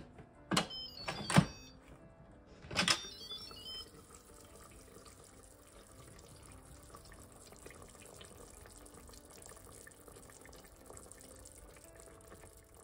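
Electric pressure cooker lid being twisted and unlatched: three sharp clicks and clanks in the first three seconds, the loudest about a second and a half in, the last with a brief metallic ring as the lid comes free. A faint steady hiss follows as the lid is lifted off the hot stew.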